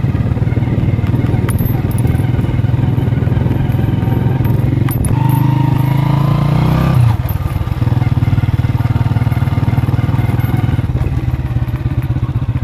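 Small motorcycle engine running while being ridden; about two-thirds of the way through its note rises for a couple of seconds, then drops suddenly and settles back to a steady run.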